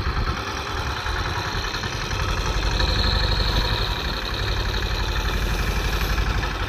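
A fishing boat's engine idling with a steady, even low pulse.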